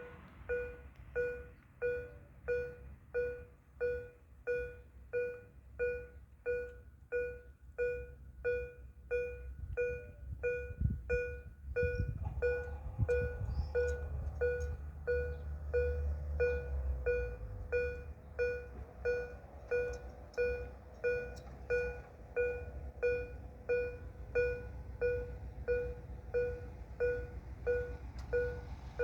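Railway level crossing warning bell ringing a steady electronic ding, a little over once a second, the signal that a train is approaching. From about 12 seconds in, a low engine rumble joins under it.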